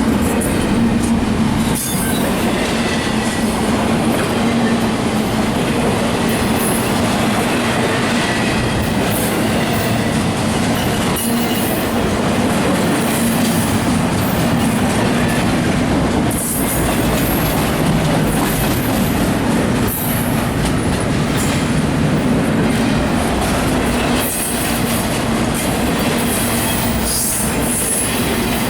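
CSX freight train cars rolling steadily past on the main line, a continuous loud rumble of wheels on rail with occasional knocks.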